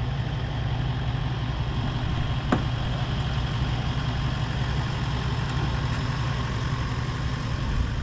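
Toyota Land Cruiser 79 series four-wheel drive's engine running steadily at low revs, with a single sharp click about two and a half seconds in.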